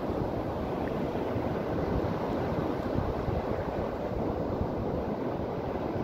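Sea surf breaking and washing up a sandy beach, a steady unbroken rushing, with wind buffeting the microphone.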